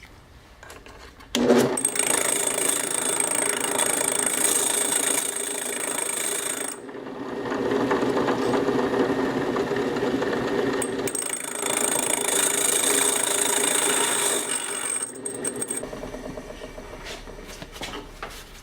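Drill turning a 7/8-inch Starrett diamond hole saw slowly through the glass of a bottle, with water as coolant: a steady whirring and grinding with a high whine. It starts about a second and a half in, dips briefly a third of the way through, runs again and stops a few seconds before the end, followed by a few light clicks.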